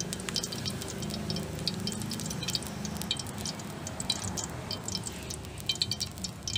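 A thin film of cooking oil heating in an empty steel wok, crackling and spitting in scattered small ticks over a low steady hum.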